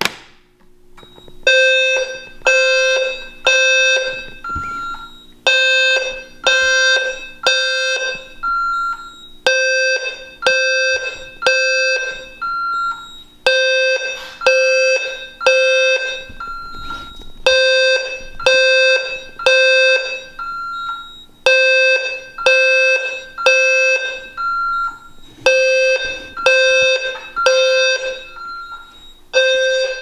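System Sensor P2WL-LF low-frequency fire alarm sounder going into alarm after a manual pull station is pulled, starting about a second and a half in. It sounds its 520 Hz tone in the temporal-three evacuation pattern: three beeps, then a pause, about every four seconds. A single shorter, higher beep falls in each pause.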